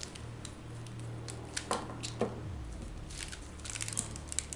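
Small clicks and taps of paint supplies being handled, an ink pot and brush being picked up, over a steady low hum.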